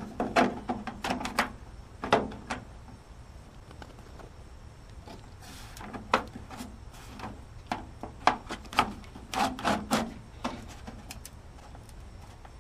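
Plastic drain pipe and a downspout adapter being handled and fitted together: scattered knocks and clicks in small clusters, with a short scrape about five seconds in.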